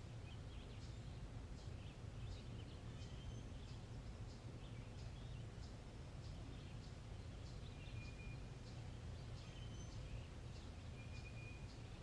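Faint birdsong: several birds chirping in short calls all through, with a few brief held whistled notes, over a steady low background rumble.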